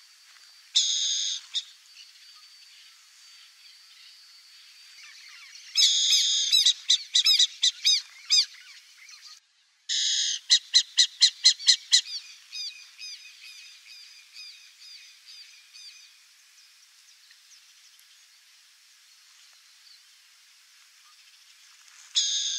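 Bird calls: a loud harsh call about a second in, another around six seconds followed by about two seconds of rapid short chirping notes, a third around ten seconds followed by a run of notes that fades over several seconds, and a last harsh call near the end. A faint steady high whine runs underneath until about five seconds in.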